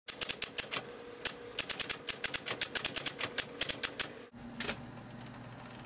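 Typewriter typing: keys striking the paper in quick, irregular runs of sharp clacks, which stop about four seconds in. A low steady hum follows.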